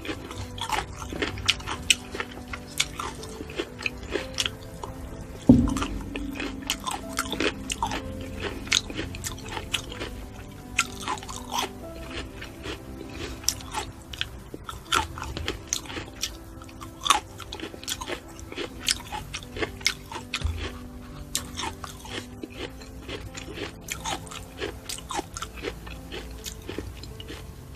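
Close-up eating sounds of fresh fruit being bitten and chewed, wet crunchy clicks coming throughout, with a strawberry at the lips near the end. Soft background music plays throughout, and a single low thump sounds about five seconds in.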